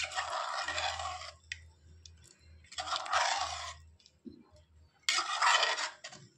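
A steel ladle stirring chicken pieces in watery masala in an aluminium pressure cooker: three scraping, sloshing strokes of about a second each, roughly two and a half seconds apart.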